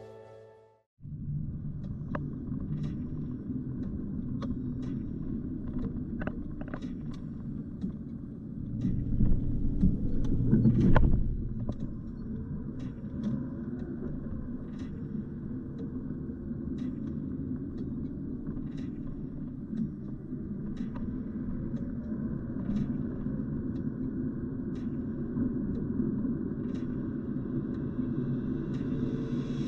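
A car driving, heard from inside the cabin: a steady low rumble of engine and tyres on the road that begins after a second of silence and swells louder for a couple of seconds about nine seconds in. Faint sharp ticks come every second or so over the rumble.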